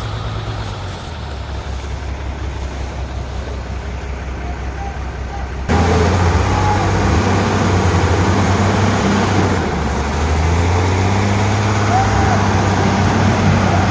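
Heavy truck diesel engine running hard while a tow truck winches a stuck lorry: a steady low drone that suddenly gets louder about six seconds in and dips briefly near ten seconds.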